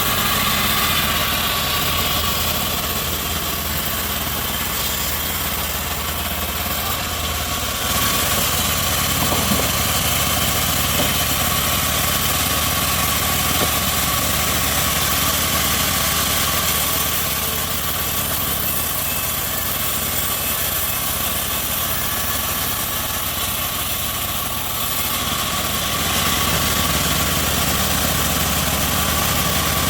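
Home-built bandsaw sawmill running steadily, a continuous engine-like drone with a thin steady whine. Its tone shifts about eight seconds in and again near twenty-five seconds.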